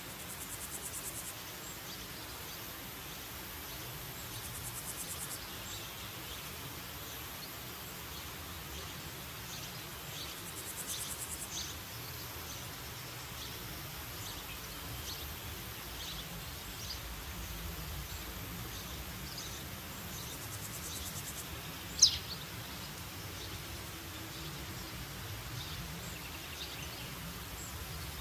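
Woodland ambience: a steady background hiss with scattered faint bird chirps and a few brief high buzzing trills. About 22 seconds in, a single loud, sharp bird call sweeps quickly downward in pitch.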